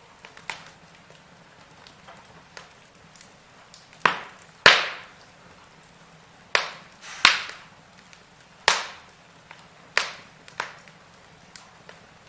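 Wood fire in a fireplace crackling, with sharp scattered pops over a faint steady background; the loudest pops come in a cluster from about four seconds in until about ten seconds in.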